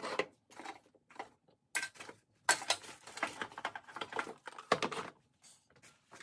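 Hand tools clinking and rattling as they are dug out of the top tray of a steel Kennedy tool box and set down on a workbench: a run of irregular clicks and knocks, busiest in the middle, with the sharpest clacks about two and a half and nearly five seconds in.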